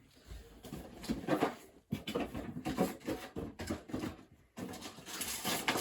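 Irregular rustling and light clicks of Pokémon trading cards being handled and shown.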